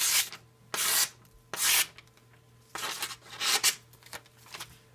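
Benchmade Nim Cub II fixed-blade knife slicing through a glossy magazine page in a series of short rasping strokes, about five, with a quick cluster around three seconds in. This is a paper cut test of a very sharp edge, with the blade taking strips off with barely any pressure.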